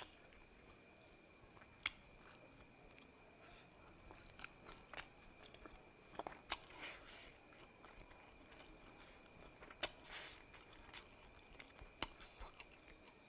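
Close-miked mouth sounds of a person eating: quiet chewing with scattered sharp clicks and wet smacks, a dozen or so spread irregularly through the stretch.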